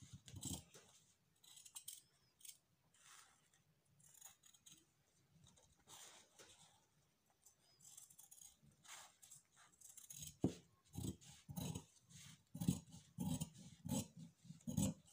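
Scissors snipping through a stiff white fusing (interlining) sheet: faint, scattered snips at first, then louder, steadier snips about twice a second in the last third.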